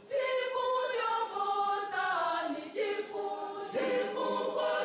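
Church choir of men and women singing together, holding notes that move from pitch to pitch.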